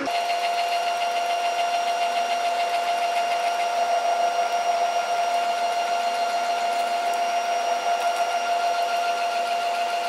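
NEMA 17 stepper motor spinning the machine's two-blade gripper, which holds the wire's insulation and twists it off the end. It gives a steady, even whine with fainter higher overtones.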